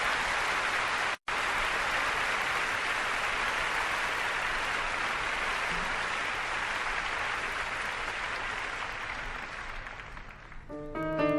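Audience applauding: a dense, steady clapping that cuts out for an instant about a second in and dies away near the end, as piano music starts.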